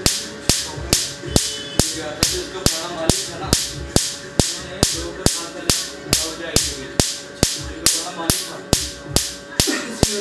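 Tattoo-removal laser handpiece firing, a sharp snap a little more than twice a second at an even rate, with background music underneath.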